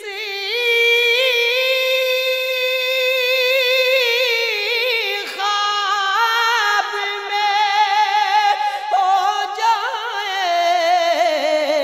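Wordless vocal interlude in a naat: long held sung notes with vibrato and no instruments, pitched above the lead singer's line just before. A second layer of voices comes in about halfway through.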